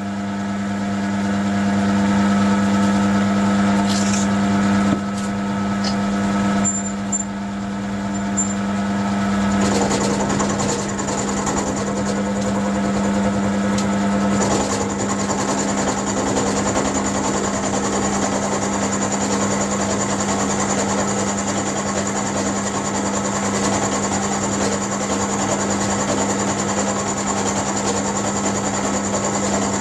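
Mill-drill motor and spindle running with a steady hum while an end mill takes a 0.5 mm cut in steel. From about ten seconds in, the cutting adds a rougher, harsher sound over the hum as the table is fed along.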